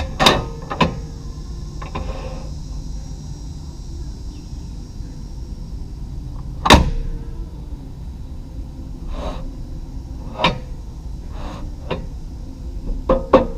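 A few scattered knocks and clunks over a steady background hum, the loudest sharp knock about seven seconds in.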